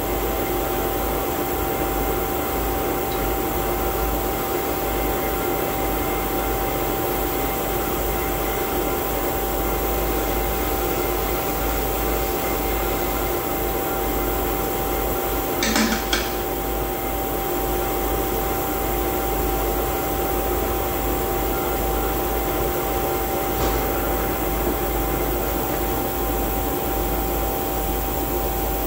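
Steady machinery hum with a constant whine. A brief double clink of metal hand tools comes a little past halfway, and a fainter tap follows later.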